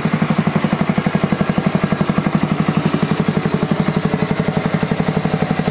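Small single-cylinder four-stroke petrol engine (Honda GX-type clone with a recoil starter), freshly started, running steadily with a rapid, even put-put. It runs smoothly, 'whispers'.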